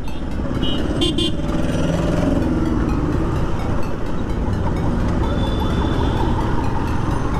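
Motorcycle riding along a city street, its engine running steadily under wind and traffic noise, with a couple of short vehicle horn toots about a second in.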